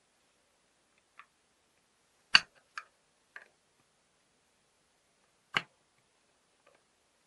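Sharp metal clicks and knocks from a small screwdriver working a cover screw into the steel case of an old gate lock. There are about six separate clicks, the loudest two about two and a half and five and a half seconds in.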